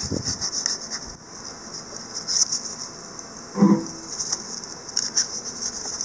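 Dry crackling rustle and scratching of a slip of paper being handled and rubbed between the lathe tool tip and the end of the stock while feeling for the touch-off point. A short low hum comes about three and a half seconds in.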